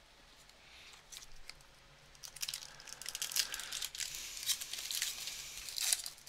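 Foil wrapper of an Upper Deck hockey card pack crinkling and tearing as it is ripped open by hand, starting about two seconds in.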